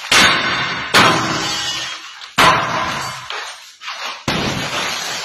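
Tempered-glass office partition panels being struck and shattering: four sharp smashes, each followed by a long rush of glass crumbling into small pieces and falling.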